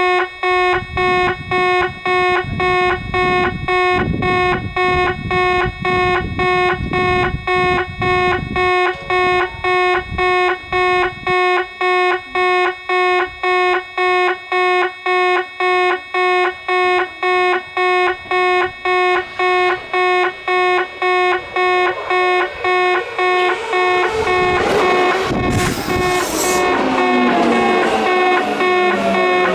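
Railway level-crossing bell ringing in an even, quick rhythm. About 23 seconds in, an arriving Kintetsu train rises over it with wheel and running noise and a falling whine from its motors as it slows.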